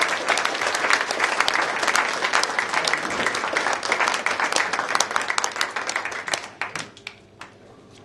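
Audience applauding: dense clapping from many hands that thins out and stops about seven seconds in.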